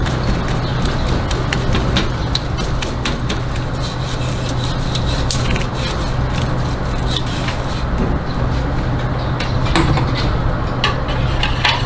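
Takoyaki cooking: metal utensils clicking and tapping against the pan over a steady low hum, the taps coming quickly, several a second, near the end.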